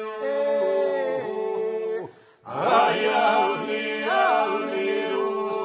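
Albanian iso-polyphonic folk song from Gjirokastra: a steady held drone sung under solo voices that carry the melody. The singing breaks off briefly about two seconds in, then resumes louder.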